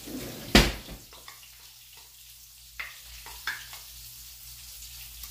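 A utensil knocking and scraping against a bowl and a metal baking pan as cheese sauce is poured and worked into boiled cauliflower. One sharp knock about half a second in is the loudest, followed by several lighter clicks and scrapes.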